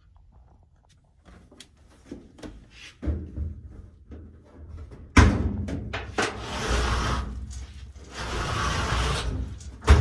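Knocks, then two long stretches of scraping and rumbling as a clothes dryer is dragged out from the wall, ending in a sharp thump.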